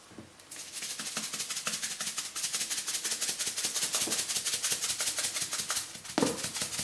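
Salt being shaken out of a salt container over potatoes in a glass dish: a fast, steady rattle of salt grains.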